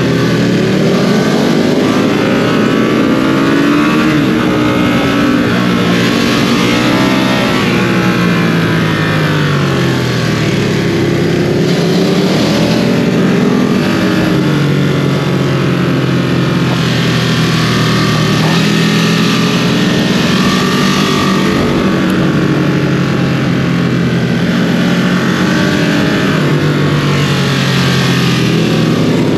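2022 Ducati Streetfighter V2's 955 cc L-twin engine with its stock exhaust, running hard under way. The pitch climbs and drops again and again as the bike accelerates and the throttle is eased or gears change.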